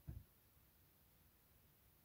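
Near silence: faint room tone, with one brief low thud just after the start.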